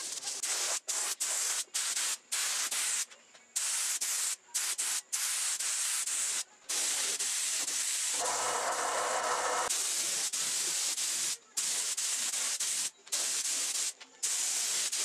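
Compressed-air gravity-feed spray gun spraying finish onto wood, a loud hiss that starts and stops sharply with each trigger pull and release. About eight seconds in, the hiss turns fuller and lower for a couple of seconds.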